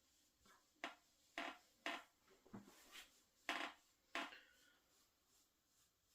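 Hands working on a person's body in a back-cracking massage session: about seven brief, soft knocks at uneven intervals, the loudest about three and a half seconds in.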